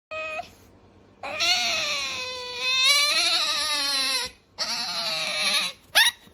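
Asian small-clawed otter whining in high-pitched, wavering squeals: a short call, a long one of about three seconds, a second one of about a second, then a quick rising squeak near the end.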